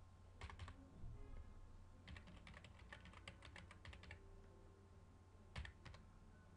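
Faint typing on a computer keyboard: a couple of clicks, then a quick run of about fifteen keystrokes over two seconds as a network path is typed, then a sharper double click near the end.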